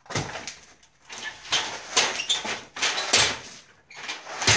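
Rough scraping and rustling from work on an opened plasterboard ceiling, in about five separate strokes, the loudest near the end.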